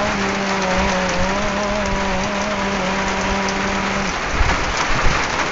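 Heavy rain pouring down in a storm, with a man's voice holding one long, slightly wavering note of the adzan, the Islamic call to prayer, which stops about four seconds in.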